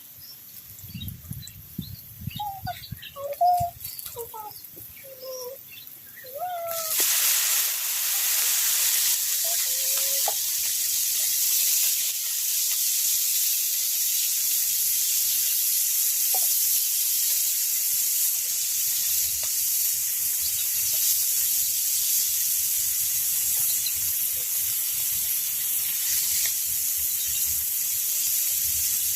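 Frying in hot oil: a loud, steady sizzle starts suddenly about seven seconds in and carries on. Before it, birds chirp faintly.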